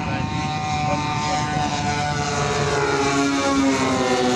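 Large-scale radio-controlled North American F-82 Twin Mustang model flying past, its two propeller engines droning steadily. The sound grows a little louder and the pitch sags slightly in the second half as it passes.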